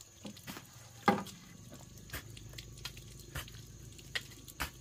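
Scattered light knocks and clicks from objects being handled, with one louder knock about a second in.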